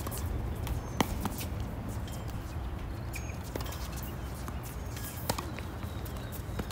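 Tennis balls struck by rackets and bouncing on a hard court: a scattered series of sharp pops, the loudest about a second in, over a steady low rumble.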